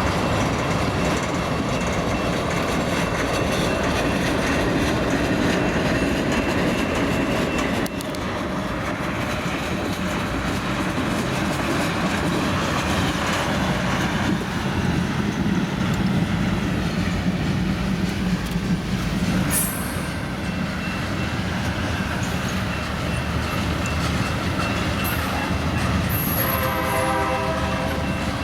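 Long freight train rolling slowly out of a yard: a continuous rumble and clatter of wheels on rail, with high wheel squeal now and then. Near the end a short note sounds from the lead locomotive's wheezing Nathan K3LA horn.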